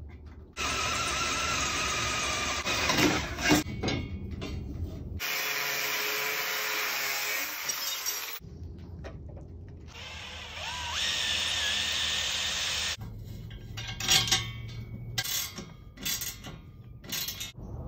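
Separate loud runs of power tools on steel, among them an angle grinder cutting angle iron, one run rising in pitch as the tool spins up. Near the end come short clicks and clanks of a socket ratchet tightening bolts on a steel bracket.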